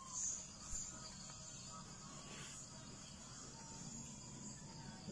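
Steady high-pitched chirring of insects, with a couple of brief soft scuffs in the first second.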